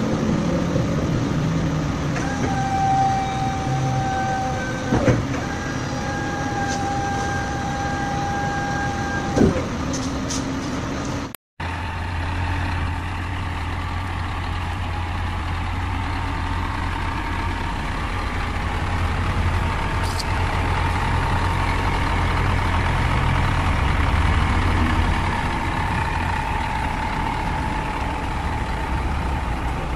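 Steady electric whine of a truck's hydraulic tail-lift pump, running for about two seconds and then about four more, with a clunk at each stop. Then an Isuzu Elf NPR Pro truck's diesel engine idling steadily with a low rumble.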